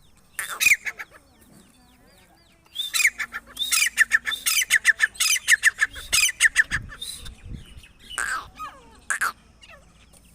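Grey francolin (teetar) calling, described as a female's call: a short burst of harsh notes near the start, then a fast run of repeated sharp notes from about three seconds in, and two more single calls near the end.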